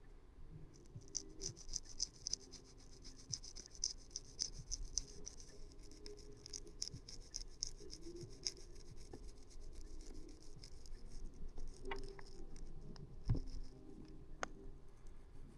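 Faint scratching and rubbing of a small port-cleaning tool working inside an iPhone charging port to dig out packed dust, a rapid run of tiny scrapes and clicks that thins out after about eleven seconds. A single sharp knock comes about thirteen seconds in.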